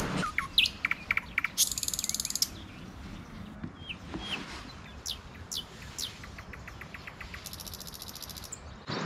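Birds chirping and calling in scattered short, sharp notes, with a rapid high buzzing trill about two seconds in and another near the end.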